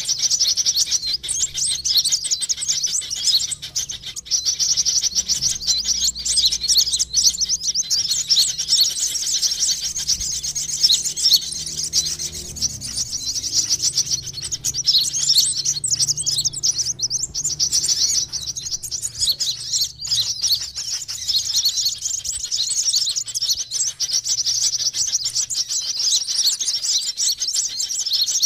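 Sunbird lure call: an almost unbroken stream of rapid, high-pitched chirps and twitters with only brief pauses. It is a recording played to attract sunbirds.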